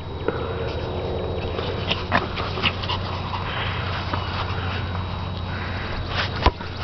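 Small dog's breathing and sniffing as it chases a ball over grass, above a steady background hum, with a few light taps about two seconds in and one sharp knock near the end.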